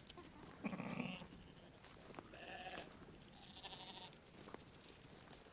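Katahdin sheep bleating: three short calls of different pitch, from low to high, about a second apart.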